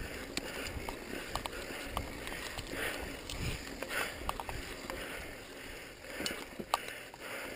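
Mountain bike rolling fast down a dry dirt trail: a steady rush of tyres on dirt and leaf litter, broken by frequent sharp clicks and rattles of the bike over bumps, one louder knock near the end.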